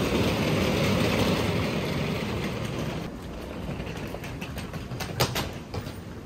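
Hard-shell suitcase wheels rolling over paving, a dense rattling rumble. It fades about three seconds in, and a few sharp clicks follow near the end.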